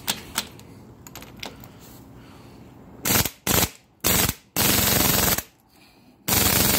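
Pneumatic impact wrench hammering on a cylinder head bolt of a Corvette engine in five short bursts, starting about three seconds in after a few light clicks. It fails to break the bolt loose, which the workers put down to too little air pressure.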